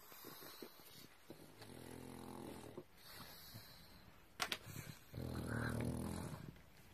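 Pug growling low twice, about a second each, the second louder: an angry warning from a dog whose snack has been taken. A short click comes between the two growls.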